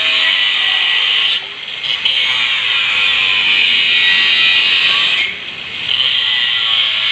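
Electric arc welding arc crackling and hissing steadily as it burns a hole through iron. It breaks off twice, for about half a second each time: about a second and a half in, and again past the five-second mark.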